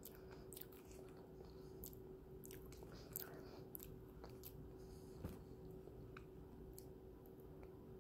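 Faint chewing of a snack: soft, irregular mouth clicks and crunches, a couple a little louder, over a faint steady hum.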